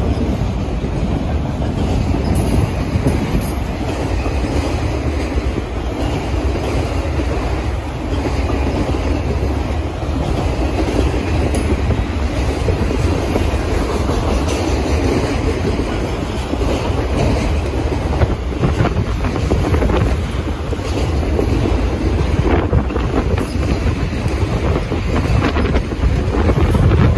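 Freight train of autorack cars rolling past at about 30 mph: a steady rumble of steel wheels on rail, with faint scattered clicks.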